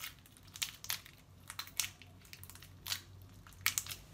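Homemade slime with toothpaste worked into it being squeezed and kneaded between the fingers, giving irregular sticky clicks and crackles, a few each second.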